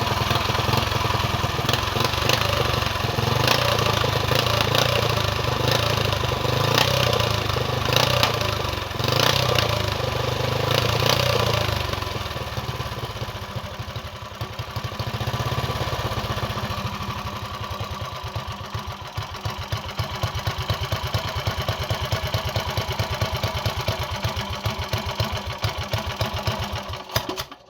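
An engine being revved in repeated blips, then settling to an even idle, and cutting off suddenly near the end.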